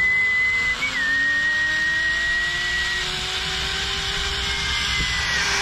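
Zip-line trolley pulleys running along a steel cable: a steady whirring hiss with a high whine, and lower tones that rise slowly in pitch as the rider picks up speed.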